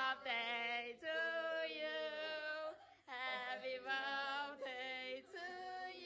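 Several women's voices singing together without accompaniment, in sustained phrases with short breaks about one, three and five seconds in.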